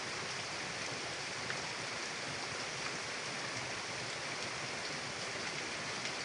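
Mountain river flowing, a steady rushing hiss of water with faint scattered splashes.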